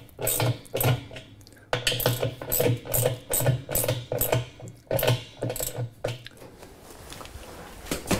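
Ratchet wrench clicking in short back-and-forth strokes, about two to three a second, tightening the bolts on a Speed Queen washer's basket drive hub; the clicking stops about six seconds in.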